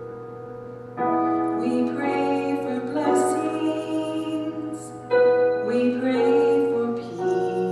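A voice singing a slow song over piano chords, with fresh chords struck about a second in and again about five seconds in.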